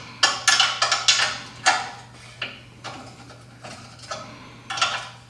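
Metal hand tools clicking and clanking as they work on a car's exhaust fasteners: about a dozen irregular sharp metallic strikes, bunched in the first two seconds, then sparser.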